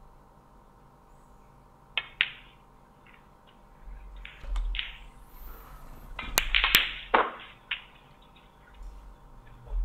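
Snooker balls clicking: the cue striking the cue ball and balls knocking together, a pair of sharp clicks about two seconds in and another pair about two-thirds of the way through, with soft shuffling sounds between.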